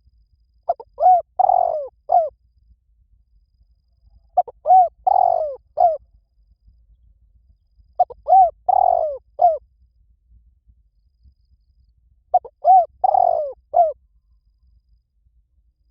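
Spotted dove cooing: four phrases about four seconds apart, each of four coos with the third drawn out longest.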